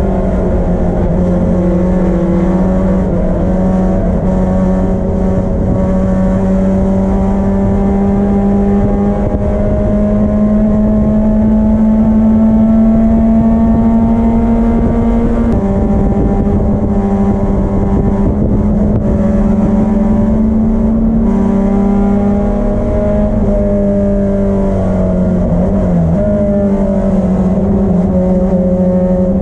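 BMW M10 four-cylinder race engine under hard throttle at high revs, the pitch climbing slowly, then dropping with an upshift about halfway through and again later. Near the end there is a brief dip and rise in revs.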